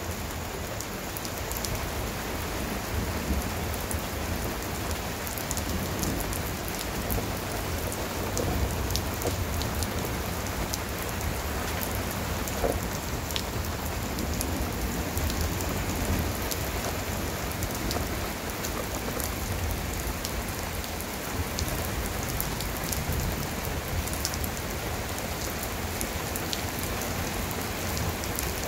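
A sudden heavy rain shower falling steadily, with a dense hiss and many small, sharp ticks of drops striking hard surfaces.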